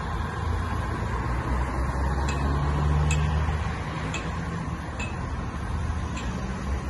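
Road traffic at a street intersection: vehicle engines running as cars pull through, with a low engine rumble swelling about two to four seconds in. A faint sharp tick repeats about once a second.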